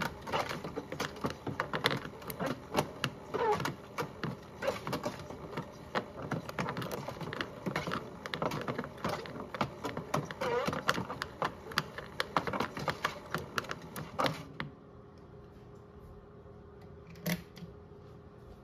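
Modified Miele toy washing machine tumbling a toy turtle in soapy water: fast, irregular clattering and knocking with sloshing as the drum turns. About fourteen seconds in the drum stops abruptly, leaving a faint steady hum and one sharp click near the end.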